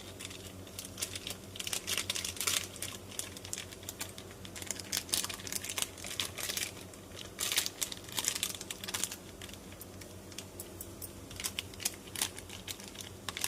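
A spoon clicking and scraping irregularly against a pan as poha is stirred, over a low steady hum.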